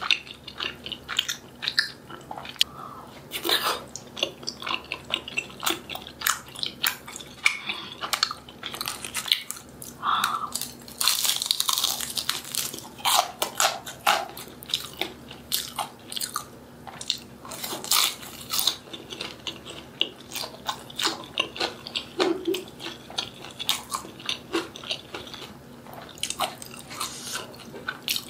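Close-miked eating of Korean snack food: a person biting and chewing, with many small wet mouth clicks and a denser run of crunching about eleven seconds in.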